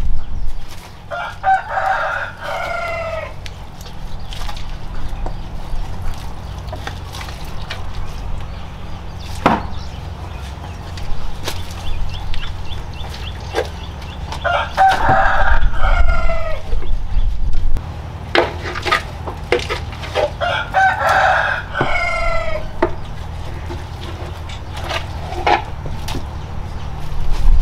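A rooster crows three times, each crow about two seconds long and falling at the end. Between the crows come scattered sharp knocks and scrapes of a scoop working in a metal cooking pot.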